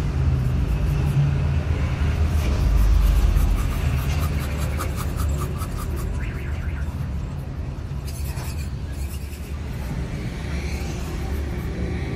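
Steady low rumble of motor vehicles, loudest about three seconds in. Over it, faint light scraping and a quick run of small ticks as a knife cuts a strip of rubber along a tyre sidewall.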